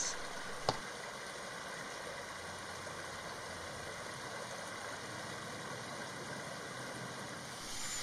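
Steady rushing of creek water, with one short click less than a second in.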